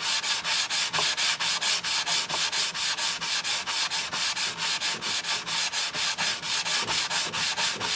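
Sanding block rubbed by hand over a JB Weld-filled crack in a clock's roof, smoothing the filler. Quick, even back-and-forth strokes, about five a second, stopping at the end.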